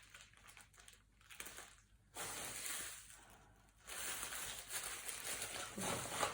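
Packaging crinkling and rustling as it is handled, louder and more continuous from about two seconds in.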